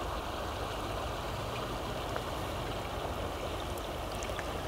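Steady rush of a river flowing over shallows.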